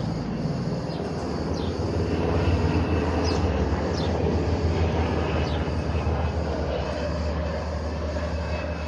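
Aircraft engine drone, a steady low hum that swells about two to three seconds in, as of an aircraft working over the fire.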